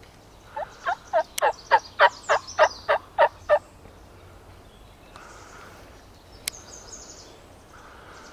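A run of about a dozen turkey yelps, about four a second, growing louder over some three seconds. Later comes a single sharp click.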